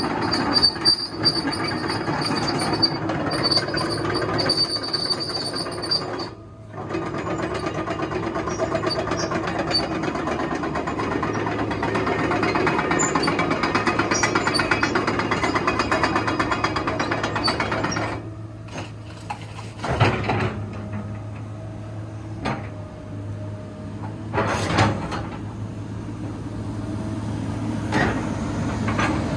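Komatsu PC230-8 hydraulic excavator running, a steady mechanical drone with a constant low hum. The level swells and eases as the machine works; it dips briefly about six seconds in and is quieter after about two-thirds of the way through, with a few sharp knocks.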